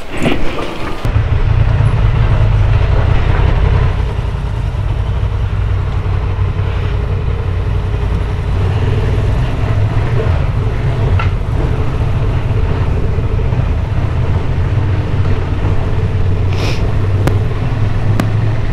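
Honda XL750 Transalp's parallel-twin engine running as the motorcycle pulls away and rides on, with a steady low rumble that sets in about a second in.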